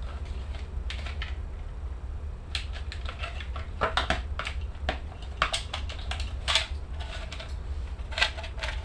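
Hand tools clicking and tapping irregularly against metal while the turn-indicator and headlight fittings of a 1974 Honda CB750 are being unfastened. The clicks grow louder and closer together about halfway through, over a low steady hum.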